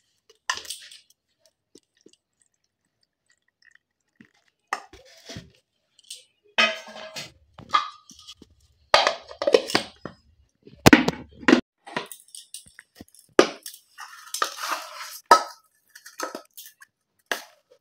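Steel spoon scraping and clinking against stainless-steel bowls and a mixer jar while thick semolina-and-curd batter is scooped in, in scattered short bursts with pauses between them.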